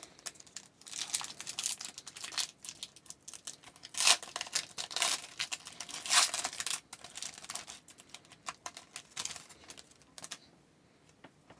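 Crinkling and rustling of a trading-card foil pack wrapper and cards being handled: a run of quick scratchy rustles with two louder bursts about four and six seconds in, dying away about ten seconds in.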